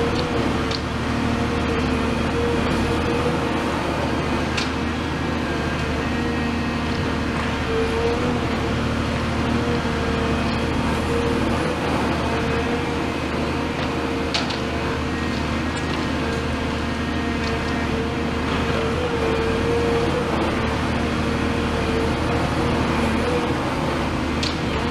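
Cat 336F excavator's C9.3 diesel engine running steadily at close range, with a steady mid-pitched whine over the rumble. A few faint sharp clicks are heard now and then.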